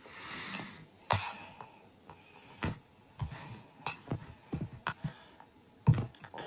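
A breathy exhale close to the microphone, then a handful of faint clicks and soft knocks spaced about a second apart, the sharpest about a second in and near the end.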